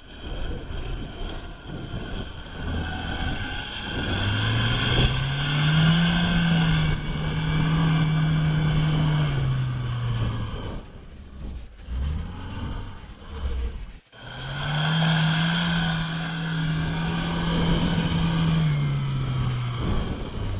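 Chevrolet Niva engine revving up, held at high revs for several seconds, then easing off, twice over with a short break between.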